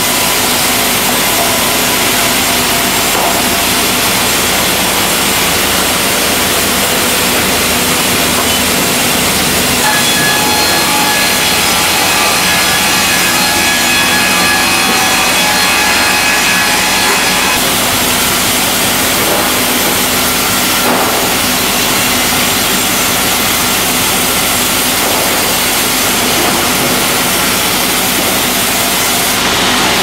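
Sawmill machinery running steadily: horizontal bandsaw mills and resaws sawing timber, a loud continuous din with a faint high whine for several seconds in the middle.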